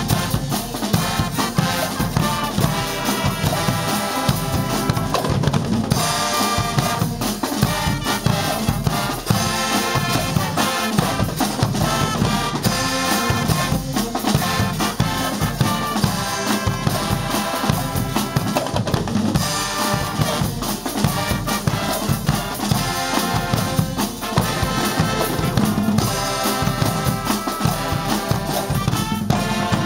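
A guggenmusik street band of brass and drums playing a tune: sousaphones and trumpets over large bass drums.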